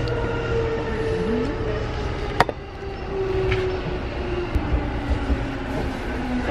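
Steady low rumble of a moving vehicle, with faint tones drifting over it and one sharp click about two and a half seconds in.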